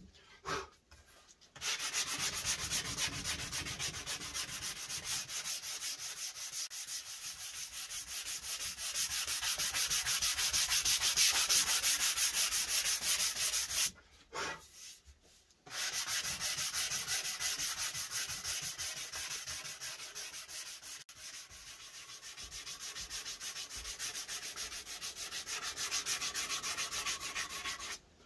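Wooden electric guitar body being hand-sanded with a sanding block in rapid back-and-forth strokes, smoothing the belly and arm carves. The sanding stops briefly just after the start and again about halfway through.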